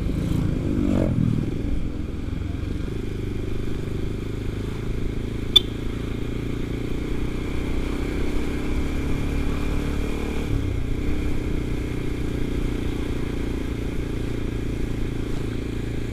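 Kawasaki Ninja 250 FI engine running steadily at road speed, heard from a helmet camera with wind rush over the microphone; the pitch rises briefly in the first second or so. A single sharp click about five and a half seconds in.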